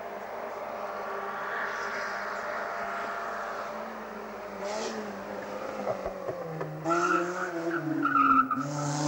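Small saloon race cars driven hard up a mountain hill-climb road, their engines revving high with the pitch rising and dropping through gear changes. The engine sound grows louder about seven seconds in.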